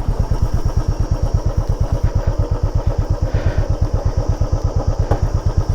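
Motorcycle engine running at low, steady revs, a rapid even thumping, while the bike is ridden down a steep, rocky off-road section.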